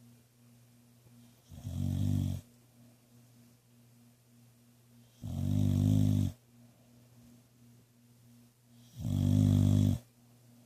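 A dog snoring in its sleep: three loud, low snores about a second each, roughly every three and a half to four seconds.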